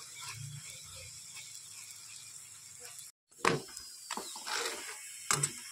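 Paratha sizzling in hot oil in a frying pan, a steady hiss. From about three and a half seconds in, a steel spatula scrapes and knocks against the pan four times, the first stroke the loudest.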